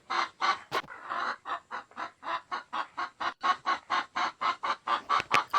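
Hen clucking: a fast, even run of short clucks, about four or five a second.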